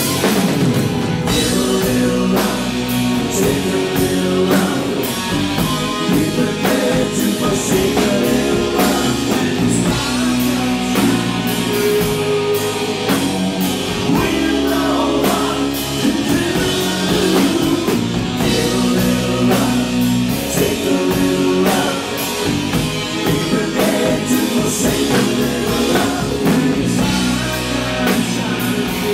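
Live rock band playing a pop-rock song: a man singing lead into a microphone over electric guitar, bass and drum kit.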